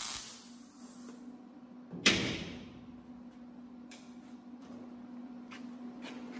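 MIG welder tack-welding sheet metal on a truck bed: a short burst of arc crackle that stops just after the start, then a sharp metal clank about two seconds in and a few light clicks over a steady hum.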